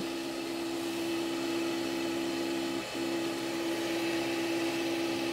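XYZprinting da Vinci 1.0 AiO 3D printer's extruder motor running with a steady hum, pulling filament into the heated print head during automatic loading. The hum dips briefly a little before the middle.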